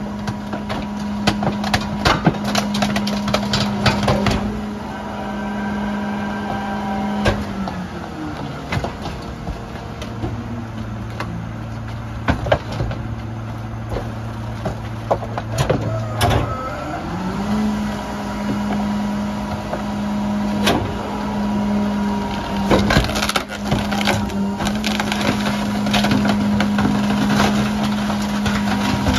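Mack MRU garbage truck's Heil 5000 rear loader packing bulk trash: the engine runs at raised speed to drive the packer hydraulics, with a faint hydraulic whine. It drops to idle about a third of the way in and revs back up about two-thirds of the way in. Repeated sharp cracks and knocks come from bulk items breaking in the hopper.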